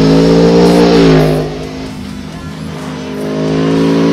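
A motorcycle engine under throttle as the bike rides past on the road. Its note drops about a second in, then builds again from about three seconds on.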